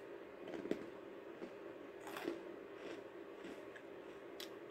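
Faint biting and chewing of a dry, crunchy fried piece from a bhujiya snack mix, with a few separate crisp crunches spread over the seconds, over a low steady room hum.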